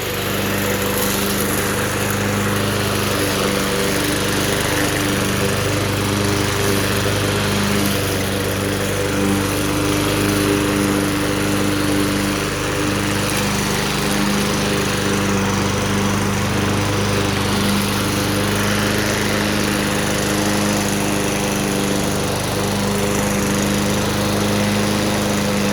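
Two-stroke Suzuki engine of a vintage Toro GTS walk-behind mower running steadily at a constant speed.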